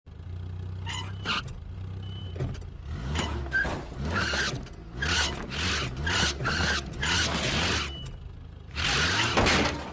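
Cartoon station wagon's engine running steadily while its tyres screech in repeated bursts as it lurches back and forth towing a boat trailer.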